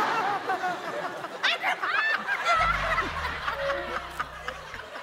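Several people laughing, with a woman's high, breaking laughter among them. From about halfway through, a low steady hum runs underneath and stops just before the end.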